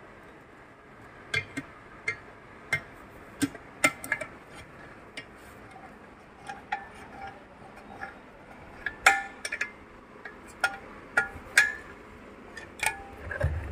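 Hand tools clicking and clinking against the metal housing and screws of a PA horn's high-frequency compression driver, in irregular sharp taps, some with a short metallic ring. A dull bump comes near the end.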